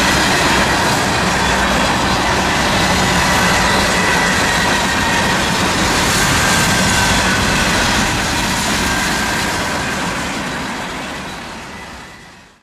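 Freight cars of a manifest train rolling past on the rails: steady wheel-on-rail noise with a faint high ringing. It fades over the last few seconds as the end of the train goes by.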